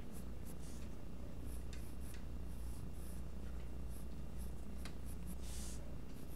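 Mechanical pencil sketching on paper: a run of short scratchy strokes, the longest about five and a half seconds in, over a steady low hum.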